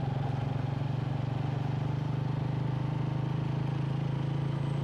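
A motor vehicle's engine running steadily, heard close up, as a low even hum.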